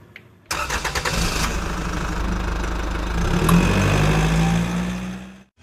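Sound effect under an animated logo intro: a loud, low rumbling noise that starts abruptly about half a second in and fades out just before the end.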